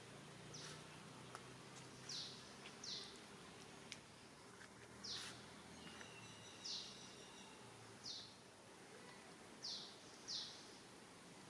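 A bird calling: about eight short, high chirps, each falling in pitch, spaced a second or so apart, over a faint background hiss.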